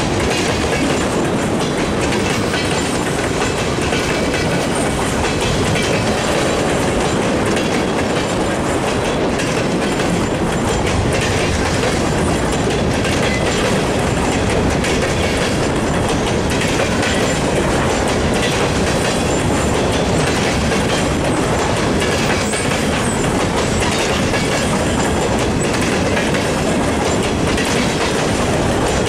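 Freight train of tank cars and covered hoppers rolling steadily past: a continuous rumble of steel wheels on rail with a dense run of clicks and knocks as the wheels cross the rail.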